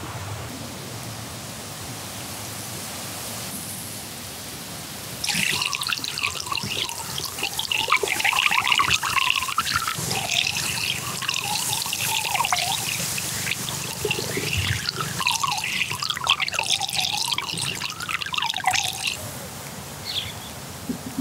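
Water pouring and gurgling, starting about five seconds in over a steady hiss and dying away near the end.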